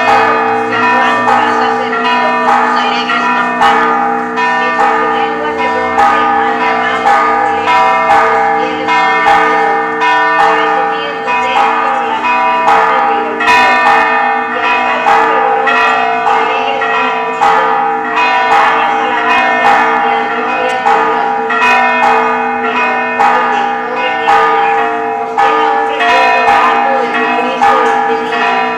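Church bells being rung in a continuous peal: several bells struck over and over, a couple of strikes a second, their tones ringing on and overlapping between strikes.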